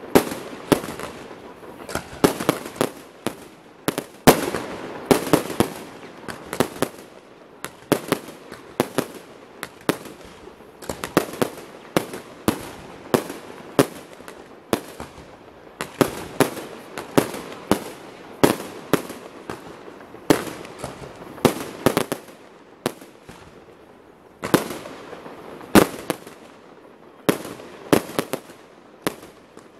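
Fireworks display: many aerial shells bursting in quick, irregular succession, several sharp bangs a second with a noisy wash between them.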